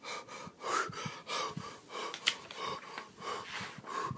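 A man breathing hard in quick gasps, about two a second, just after being startled awake from a nightmare. One sharp click just past halfway.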